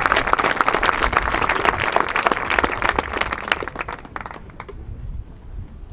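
Crowd applauding: dense clapping that thins out and dies away about four seconds in, leaving a few last claps.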